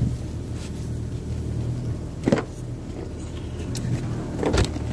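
Small boat's motor running steadily at low speed, a continuous low hum, with a couple of short knocks about two seconds in and near the end.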